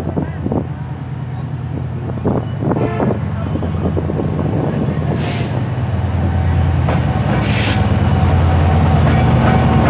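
Diesel locomotive hauling a container train approaches, its low engine drone growing steadily louder. There are two short bursts of hiss about five and seven and a half seconds in.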